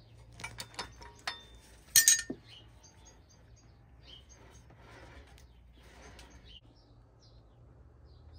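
Small metal bicycle parts clinking as they are handled on a workbench. A few light clinks come in the first second or so, then a sharper double clink about two seconds in that rings on briefly, then faint scraping.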